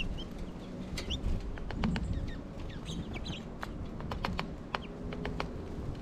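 Small feeder birds giving short, high chips and calls, with scattered sharp clicks and taps among them, over a steady low rumble of strong wind on the microphone.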